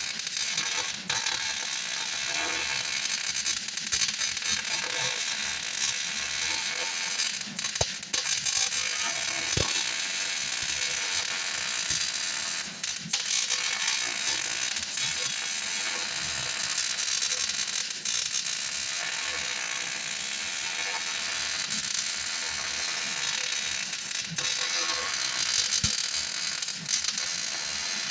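Hobart MIG welder's arc crackling and sizzling steadily as it lays a weld bead, with a few brief pauses between runs.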